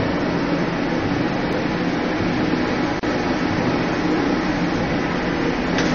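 Doosan Puma S710 CNC horizontal lathe running, a steady even hum with no change in pitch, broken by a momentary dropout about halfway.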